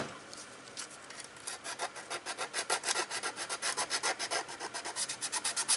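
Quick back-and-forth hand sanding with a small piece of sandpaper on a painted motorcycle part, about five or six strokes a second, growing louder. This is scuffing the old finish just enough for new paint to hold.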